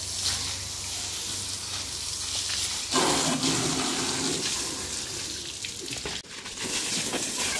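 Water from a pump-fed garden hose spraying onto a scooter and splashing on wet paving, a steady rushing hiss that grows louder about three seconds in and briefly drops out a little after six seconds.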